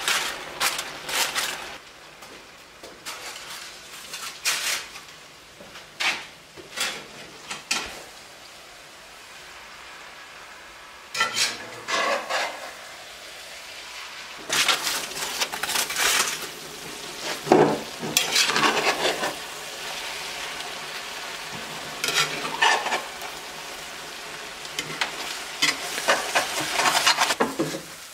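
Meat and potatoes frying in a cast iron skillet on a wood stove, with a spoon scraping and stirring in the pan at intervals. A steady sizzle comes in about eleven seconds in.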